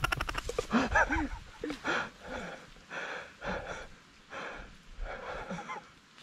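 A person panting and gasping hard, short strained breaths with brief voiced grunts about two a second: out of breath from scrambling up a steep slope.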